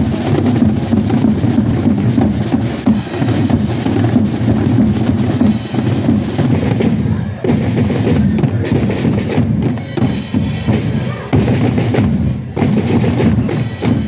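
Marching band drums playing loudly, bass drum and snare drums beating continuously.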